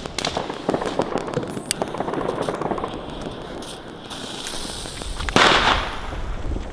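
Fireworks and firecrackers popping and crackling in the background, with a loud short burst of noise about five seconds in.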